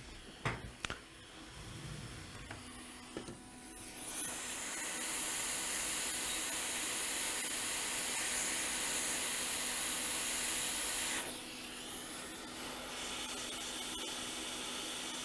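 Hot air rework station blowing a steady hiss as a replacement capacitor is reflowed onto a MacBook logic board. The hiss starts about four seconds in after a few light clicks, and turns softer about eleven seconds in.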